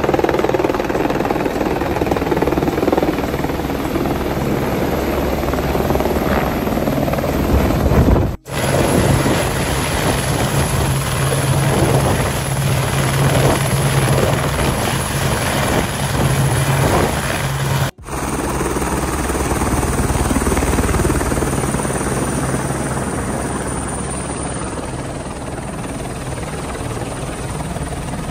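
Helicopter turbine engine and main rotor running steadily, first as it comes in to land and then turning on the helipad. The sound breaks off abruptly twice, about eight and eighteen seconds in.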